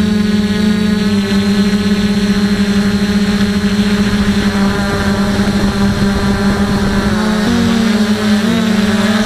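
DJI F450 quadcopter's four electric motors and propellers whining steadily, picked up close by the camera on its frame. The pitch wavers about seven and a half seconds in and again a second later.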